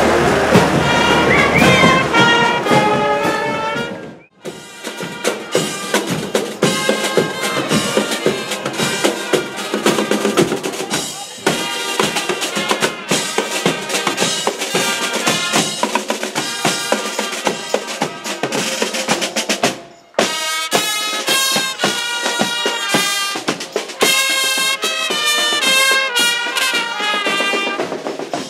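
Marching band playing a march: snare drums and a bass drum keep a steady beat under trumpets and baritone horns playing the tune. The sound breaks off briefly twice, about four seconds in and again near twenty seconds.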